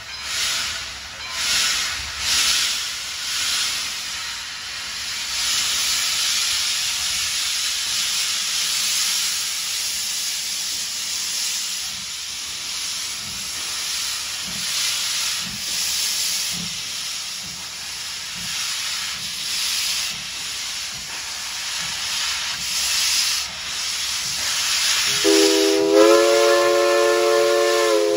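Steam locomotive 58 hissing loudly from its open cylinder cocks as it gets under way, the hiss swelling in pulses. Near the end comes one long blast on its Lunkenheimer three-chime steam whistle, wavering just before it stops.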